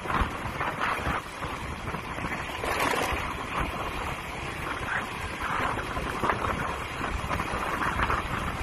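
Wind rushing over the microphone of a motor scooter on the move, with the steady noise of the ride and city traffic beneath it.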